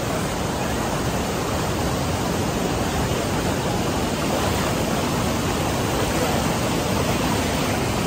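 Steady rush of a swollen, fast-flowing rocky stream and the small waterfall cascading into it, running high and strong from the rain.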